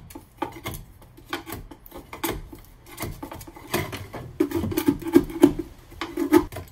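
Steel pry bar scraping and levering old, dried tar-paper-like sound-deadening material off the van's painted sheet-metal floor: a run of irregular scrapes and clicks that gets busier and louder in the second half.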